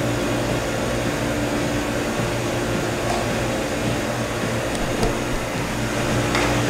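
Steady mechanical hum of room machinery, a low, even drone, with a few faint clicks near the end.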